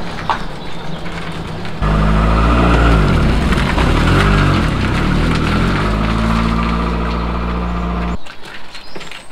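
Small car engine running, getting louder about two seconds in and revving up and down as the car pulls away, then holding steady before the sound drops off abruptly near the end.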